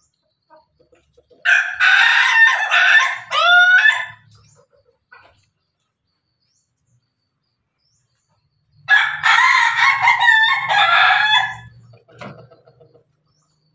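Ayam ketawa (laughing chicken) rooster crowing twice. Each crow is a run of rapid, broken, stuttering notes lasting about three seconds, and the two are about five seconds apart.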